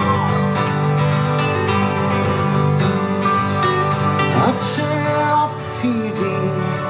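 A live band playing a song's instrumental intro, led by several strummed acoustic guitars, at a steady level.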